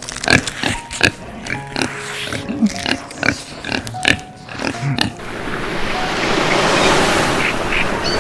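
Short animal grunts and squeals with sharp clicks, over music, for about five seconds; then the sound changes to a steady rushing noise, like wind or an outdoor rumble.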